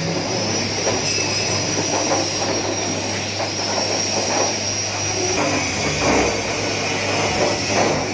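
Turmeric washing machine running: a steady motor hum and high whine, with turmeric rhizomes tumbling and knocking irregularly in the rotating drum.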